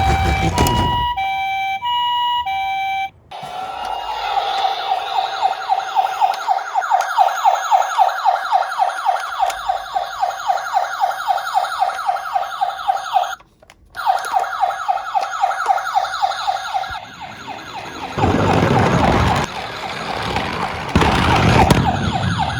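Electronic toy ambulance siren. For the first few seconds it sounds the Japanese two-tone hi-lo "pee-poh", then switches to a fast, repeating warble that runs until past the middle, cut briefly about halfway. Near the end come two loud bursts of rushing noise.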